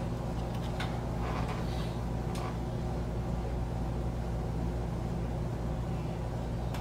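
A steady low hum made of several even tones. In the first two seconds or so it is joined by a few light rustles and taps of a cardboard LP sleeve being handled on a desk.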